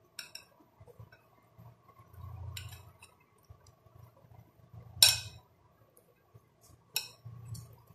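Metal spoon clinking against a glass bowl while stirring a chickpea and potato chaat: a few sharp clinks, the loudest about five seconds in, with duller scraping of the soft food between them.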